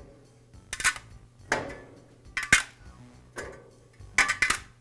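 Porcelain-enamelled steel Flavorizer bars clinking against each other and the grill's firebox as they are lifted out of a Weber Genesis gas grill one after another. It is a series of about five or six short metallic clinks, roughly one a second, the last two close together near the end.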